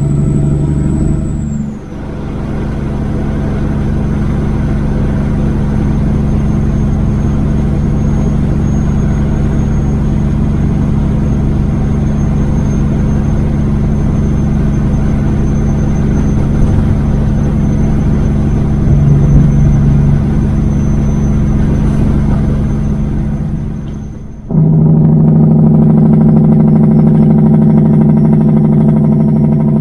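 Kenworth W900 semi truck's diesel engine running steadily at highway speed, with road and wind noise over it. The sound dips sharply about two seconds in and again near the end, then comes back louder.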